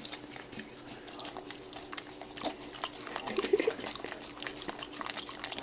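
Beagle licking and smacking soft food off a metal spoon: quick, irregular wet licks and clicks of the spoon against its teeth, with a brief squeaky sound about three and a half seconds in.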